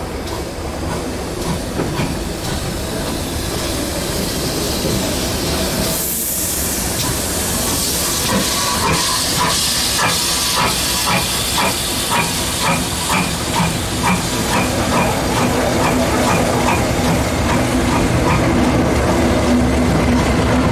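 A steam train passing: a loud hiss of steam spreads in about six seconds in, and through the middle comes a regular beat about two times a second, growing louder overall.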